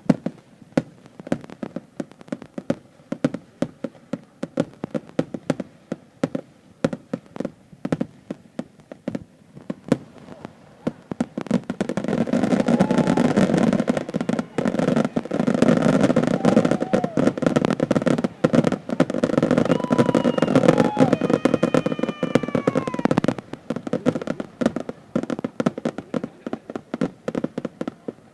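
A fireworks finale: a rapid, unbroken string of bangs and crackles, densest for about ten seconds in the middle, with a few falling whistle tones near the end of that stretch.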